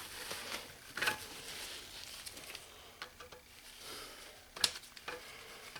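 A few scattered metallic clicks and knocks from handling a broken ratchet, the loudest about four and a half seconds in, over a faint hiss.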